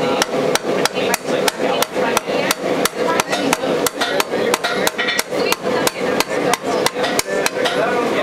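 Hand hammer striking the edge of a copper sheet held against a metal stake, a steady run of sharp blows at about three a second, working scallops into the copper's rim.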